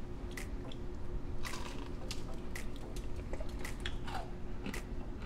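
A person chewing a mouthful of air-fried breaded chicken tenderloin, with short wet smacks about twice a second.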